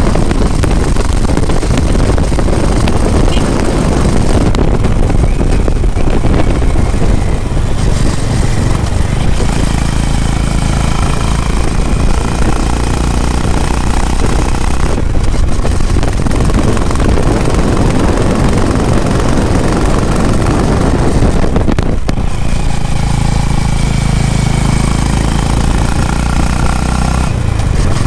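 Honda H'ness CB350's single-cylinder engine and exhaust running steadily under way, heard from the rider's seat, with wind on the microphone.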